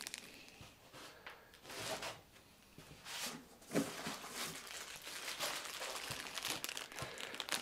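Clear plastic bags crinkling and rustling as bagged machine parts are handled: short scattered rustles at first, growing denser and more continuous over the second half.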